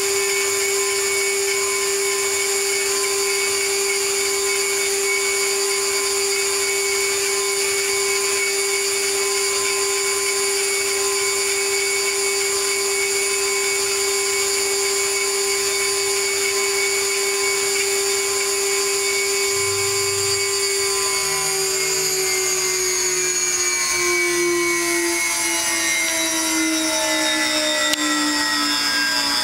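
Water-cooled spindle of a stone-engraving CNC router running with a steady high whine as the cutter engraves a stone plate. About two-thirds of the way through, the whine's pitch starts sliding slowly downward as the spindle slows.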